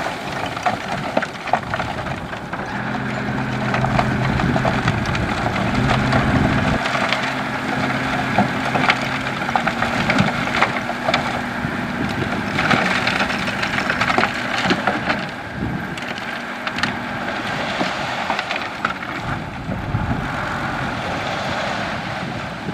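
Loose gravel crunching and rattling under heavy construction machinery, many small stone clicks over a steady grinding, with a heavy engine's low hum underneath from a few seconds in until past the middle.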